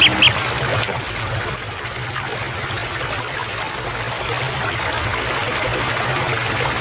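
Water of a stream flowing, a steady, even rush.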